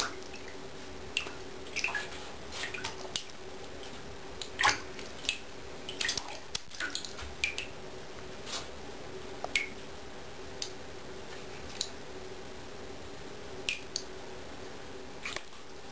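Cat paddling and pawing in shallow bathwater: irregular small splashes and drips, the loudest about five seconds in, over a faint steady hum.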